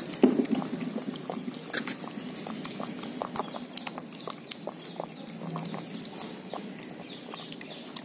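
German Shepherd puppy lapping milk from a plastic bowl: a steady run of quick, irregular wet clicks, a little louder just after the start.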